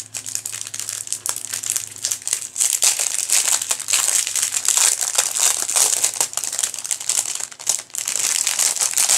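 Clear plastic bags of diamond-painting drills crinkling continuously as they are handled, a dense run of small crackles.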